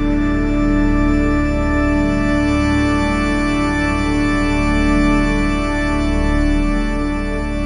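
Background music of sustained organ-like chords, held steady with little change.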